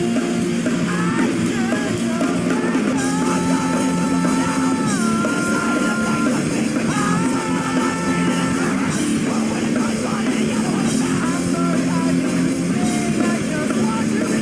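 Loud rock music with a dense distorted band sound, yelled vocals, and a sustained melodic line that bends up and down in pitch through the first half.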